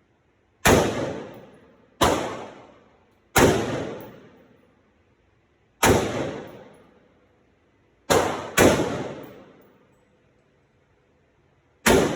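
AR-15 rifle fired in single semi-automatic shots, seven in all at uneven intervals, two of them in quick succession about two-thirds of the way through. Each shot is sharp and followed by an echoing decay of about a second.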